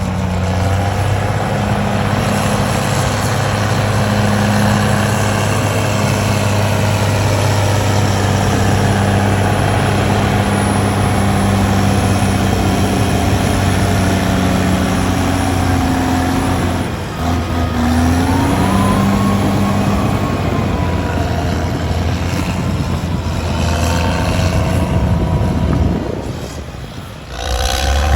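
Heavy diesel engines running steadily under load, the engine note rising and falling a few times, with two brief dips in loudness.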